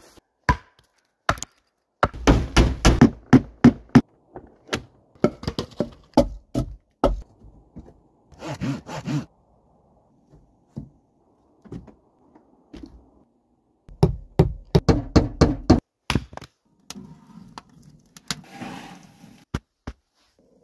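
Wood being struck and split: quick runs of hard wooden knocks and thunks, with short pauses between them and some rustling near the end.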